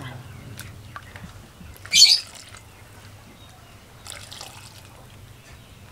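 Thick coconut milk being poured from a plastic bowl into a clay pot of vegetables in liquid, a soft liquid pour and trickle, with a short loud rush of noise about two seconds in.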